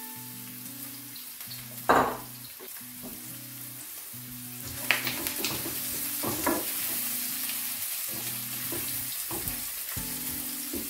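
Chopped onion sizzling in hot oil in a non-stick frying pan, with one loud sharp knock about two seconds in. From about five seconds in the sizzling grows louder, with a few clicks, as a wooden spatula stirs the onion around the pan. Quiet background music with low held notes plays throughout.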